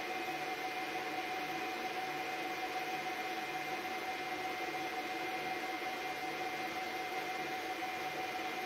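Steady electronic hiss with a constant whine and a faint low pulsing hum, typical of the noise floor of a CCTV recording.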